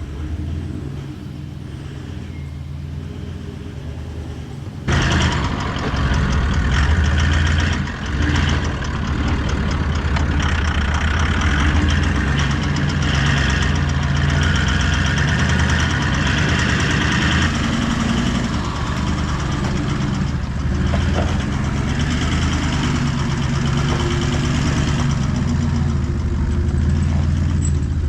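Four-wheel-drive's engine pulling hard up a steep hill in first gear low range with the lockers engaged, under the load of a towed camper trailer. About five seconds in the sound turns suddenly louder and busier and stays that way.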